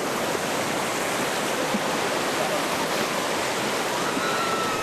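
Rushing river rapids churning around an inflatable raft: a loud, steady rush of white water. Faint shouts or voices can be heard, one near the end.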